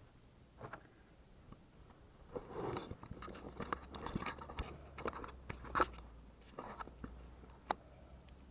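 Rummaging through picked-up scrap and trash: irregular crinkling and rustling with light knocks and scattered sharp clicks, the loudest click a little before 6 seconds in and another short one near the end.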